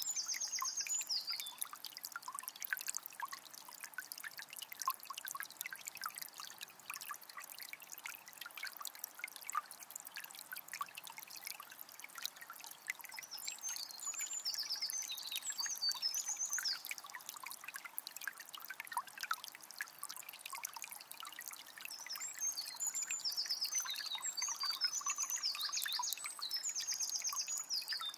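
Forest river flowing and trickling, a steady patter of small splashes. A songbird sings short high, rapidly repeated phrases at the start, again about halfway through, and several times near the end.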